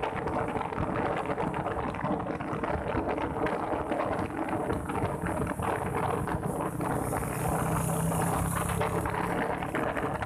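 Wind buffeting the microphone on a moving motorbike, over the steady hum of its engine and road noise. A lower engine note joins about six seconds in and fades near the end, as another vehicle runs close by.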